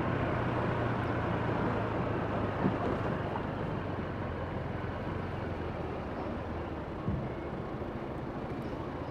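Honda PCX 125 scooter's single-cylinder engine running on the move, with road and wind noise; the engine hum is strongest at first and eases after about two seconds. Two light knocks, one near the middle and one near the end.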